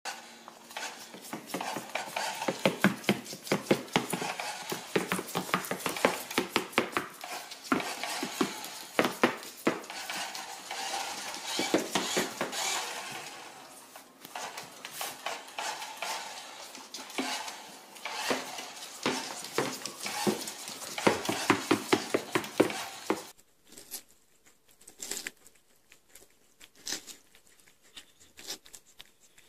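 Rapid, irregular clicking and clattering as a small tortoise's claws and shell knock against a plastic toy pickup truck on a hardwood floor. Near the end it gives way to much fainter soft ticks as a tortoise bites into watermelon.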